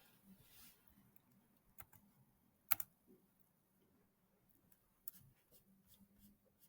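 Scattered, faint computer keystrokes and clicks: single sharp clicks, the loudest a little under three seconds in, then a quick run of lighter taps a little after five seconds.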